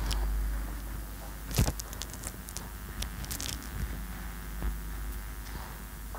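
A whiteboard being wiped clean with a duster: scattered rubbing strokes and light knocks, with one louder knock about a second and a half in, over a steady low hum.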